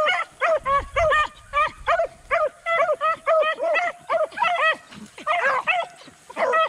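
Rabbit hounds baying on a rabbit's scent trail: a steady run of short barks, about two to three a second, with a brief break about five seconds in.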